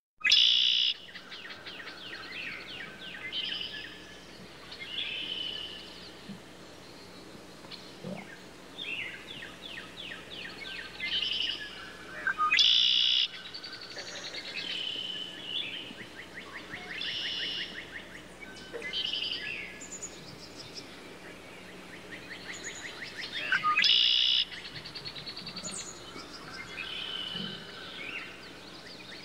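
Eurasian blackbird singing: runs of quick repeated notes and trills, broken by three louder, sharper calls about twelve seconds apart.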